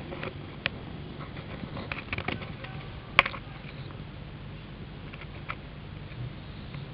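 Soft rustling and scattered small clicks from the camera being handled up close against fur, with one sharp click about three seconds in, over a steady low hum.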